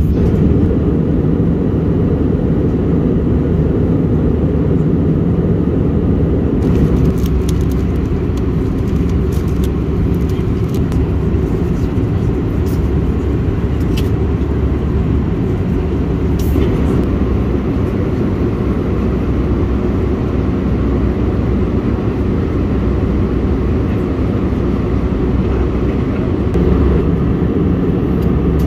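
Steady low rumble of engine and airflow noise inside an Airbus A321 cabin in flight. A few faint clicks and rustles come through it in the middle.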